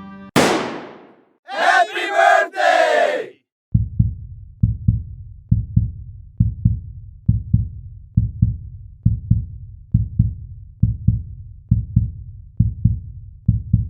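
Heartbeat sound effect: steady lub-dub pairs of low thumps about once a second, beginning about four seconds in. Before it comes a short whoosh and a brief burst of shouting voices.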